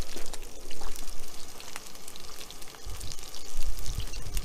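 Slices of square sausage sizzling and crackling in a frying pan on a camping gas stove, with low rumbling thumps of the camera being handled from about three seconds in.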